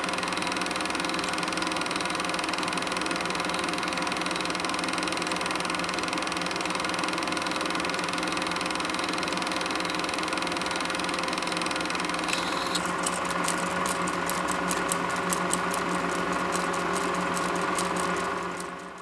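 Super 8 film projector running with a steady mechanical whir. About twelve seconds in, a rapid even clicking of about five a second joins it, and the sound fades out at the very end.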